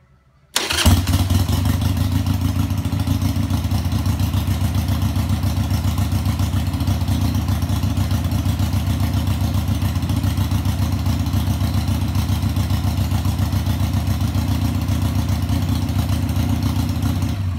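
Harley-Davidson Sportster's air-cooled V-twin fires up about half a second in and settles into a steady idle. It is running with the charging system working, pushing the battery voltage to about 14.3 V.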